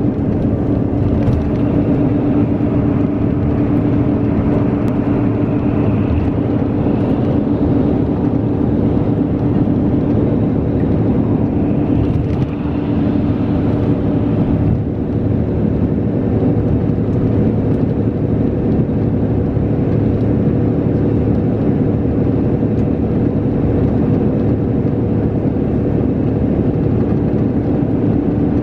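Steady drone inside a highway coach cruising on an expressway: a constant engine hum under tyre and road noise.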